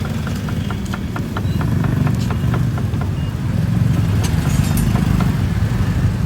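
A small engine idling steadily, with a quick run of light ticks, about five a second, during the first three seconds.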